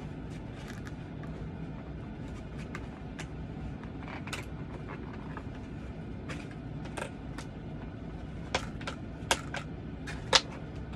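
Scattered light clicks and taps from handling a vinyl Funko Pop figure and its cardboard window box, with a few sharper clicks near the end, over a steady low room hum.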